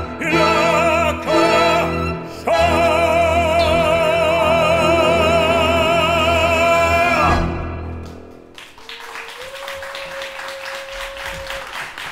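Baritone singing with a tango quintet of bandoneon, piano, violin, double bass and guitar, ending on one long held note with wide vibrato. The music stops about eight seconds in and audience applause follows.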